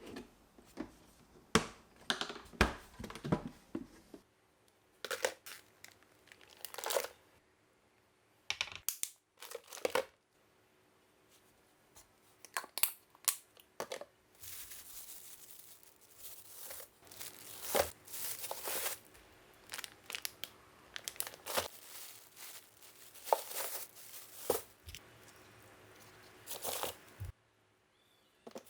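Packaging or gear being handled: irregular bursts of rustling, crinkling and tearing, with a faint steady hum underneath from about four seconds in until near the end.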